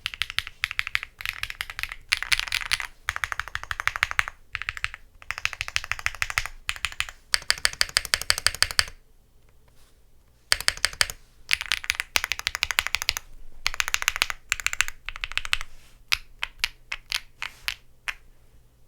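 Typing on a gasket-mount custom mechanical keyboard (Owlab Jelly Evolv) with an FR4 plate, Krytox-lubed Hyacinth V2U switches and PBT keycaps. Fast runs of keystrokes pause for about a second and a half near the middle, then resume and thin out to slower, separate key presses near the end.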